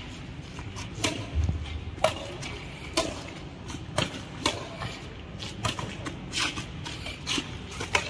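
Badminton rally: rackets striking a shuttlecock in sharp, short pops about once a second, with shoes scuffing on a concrete court.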